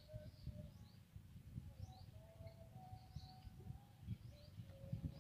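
Small birds chirping faintly in short, scattered calls, over a low rumble.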